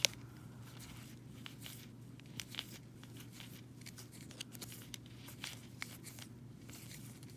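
Plastic card sleeves crinkling and clicking as a stack of sleeved trading cards is leafed through by hand, with a sharp click at the start and a steady low hum underneath.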